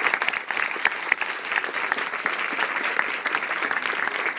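A crowd of people applauding, a dense, steady clatter of many hands clapping.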